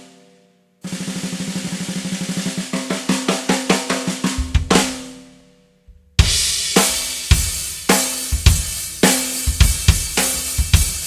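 Gas Custom 14x5 aluminium snare drum, unmuffled with Remo Ambassador heads, played in a fast, even roll that grows louder over about three seconds, with bass drum joining and an accented hit that rings out. After a short silence about six seconds in, a full drum-kit groove starts, snare with kick drum and cymbals.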